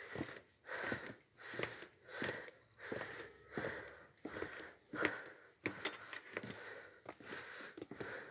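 The person filming walks along a path, making soft rhythmic sounds close to the phone's microphone, about three every two seconds.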